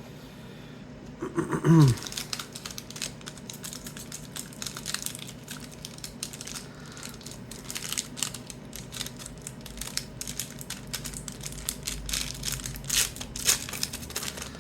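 Trading card pack wrapper being torn open and crinkled, a dense run of irregular crackles, with a short vocal sound about a second and a half in.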